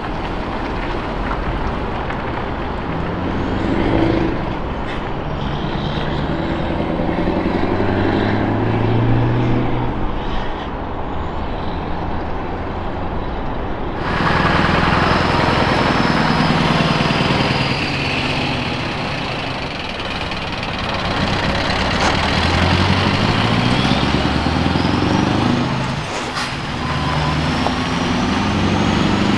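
Scania V8 truck engines accelerating hard, the engine note climbing repeatedly as each truck pulls up through its gears. A second truck takes over about halfway through.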